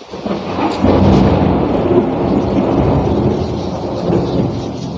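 Thunder over heavy rain: a loud, low rumble that builds sharply within the first second, then rolls on and slowly fades.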